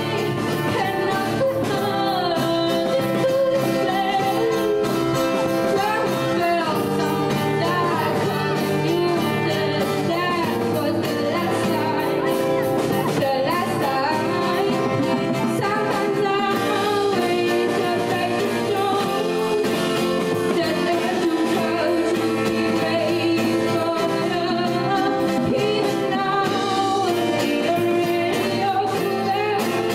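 A live band plays pop music: a woman sings into a microphone over acoustic guitar, piano and drums.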